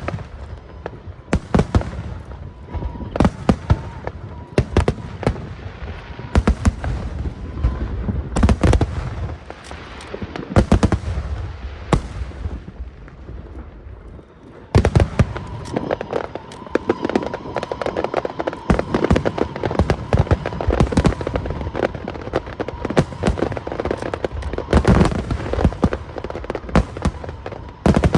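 Large aerial firework shells bursting in rapid, overlapping bangs with crackle. There is a short lull a little before halfway, then a sudden, denser barrage.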